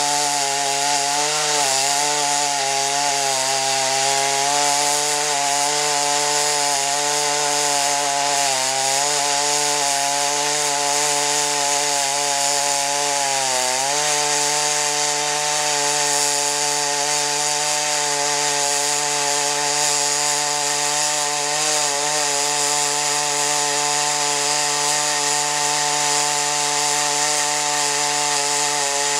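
Two-stroke chainsaw on a homemade chainsaw mill, ripping a plank from an oak log. The engine is held at high speed under the load of the cut, its pitch wavering slightly. About halfway through it dips briefly and then runs steadier.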